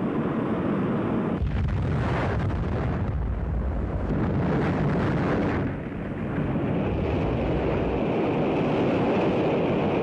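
Atlas-Centaur rocket exploding in flight: a deep, continuous rumbling roar. The heaviest low rumble starts about a second and a half in, eases for a moment around six seconds, then carries on.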